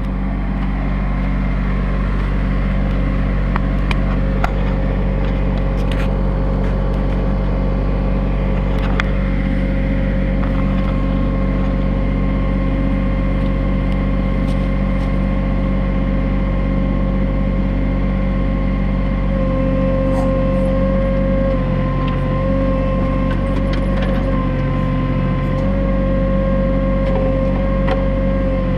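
New Holland TC33D compact diesel tractor running steadily while its Woods 7500 backhoe digs, a steady whine riding over the engine that wavers slightly in the second half. A few light clicks and knocks in the first third.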